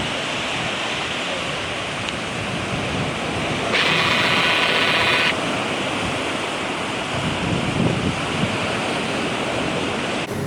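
Strong wind blowing across the microphone in a steady noisy rush, with surf beneath it. About four seconds in, a high buzzing tone rises over it for about a second and a half. The rush stops abruptly near the end.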